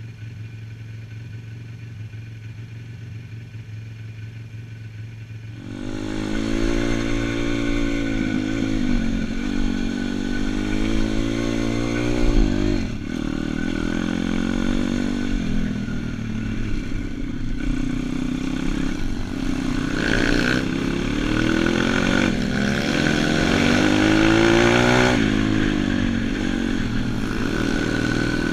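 Single-cylinder four-stroke YX 140/150 cc pit-bike engine idling low and steady for about six seconds, then pulling away under throttle. Its revs then climb and drop again and again as it shifts through the gears and works along a trail.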